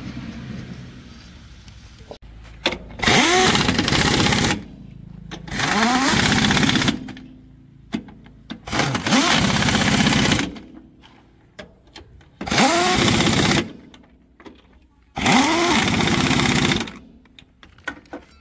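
Impact wrench run in five bursts of about a second and a half each, a few seconds apart, each spinning up and hammering.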